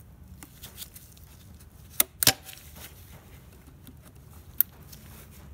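Pliers working a spring hose clamp on a turbo coolant hose: three sharp metallic clicks, two close together about two seconds in and one more near the end.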